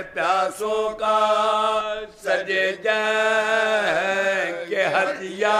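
Several men chanting a Shia mourning lament in unison, unaccompanied. The voices hold long, drawn-out notes, with short breaks for breath between the lines.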